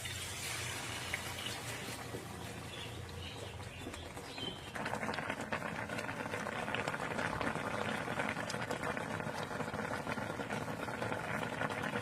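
Running water, a steady bubbling rush that turns suddenly louder and fuller about five seconds in.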